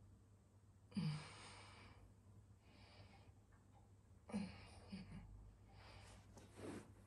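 A woman breathing slowly and deeply, with several soft sighing exhales, the strongest about a second in, some carrying a brief low voiced sound.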